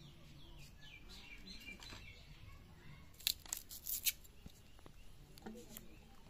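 A red onion being cut against a boti blade: a quick cluster of sharp, crisp cutting sounds about three to four seconds in. Birds chirp faintly in the background in the first two seconds.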